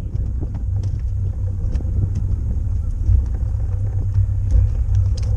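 Wind buffeting the camera's microphone: a loud, steady low rumble, with faint scattered clicks over it.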